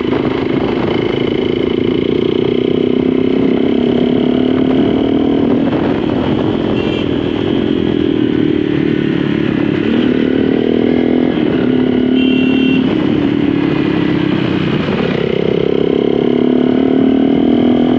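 A motorcycle engine running steadily while riding, its pitch dropping and rising a few times as the speed changes.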